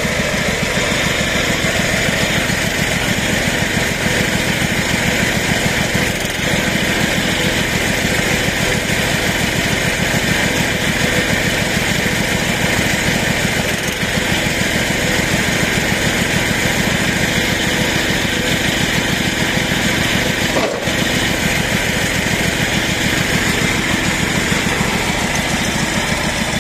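Portable sawmill's engine idling steadily with an even, fast chug.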